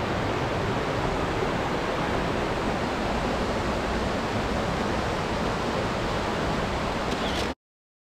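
Steady rush of falling water from a mountain waterfall, cutting off abruptly near the end.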